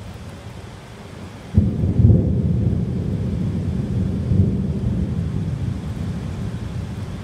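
A thunderclap breaks in suddenly about a second and a half in and rolls on as a deep rumble, swelling again about halfway through and then slowly fading, over the steady hiss of heavy rain.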